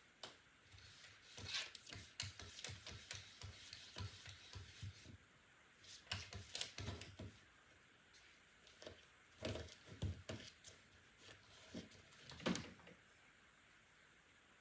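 Cats shuffling and scratching about in a bed or box: irregular clusters of soft rubbing and scratching sounds, with a sharper knock near the end.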